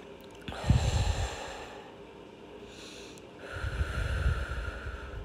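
A person's two deep breaths out through the nose, each lasting about a second and a half, close enough to the microphone to rumble, while holding a yoga stretch.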